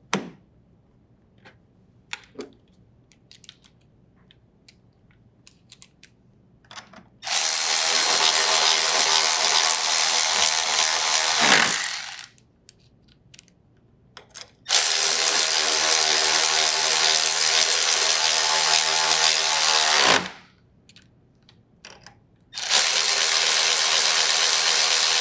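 Cordless drill driver with a 10mm socket running in the three 10mm bolts that hold a refrigerator hinge bracket: three steady runs of several seconds each. Before them come a few light clicks and taps as the bracket and bolts are set in place.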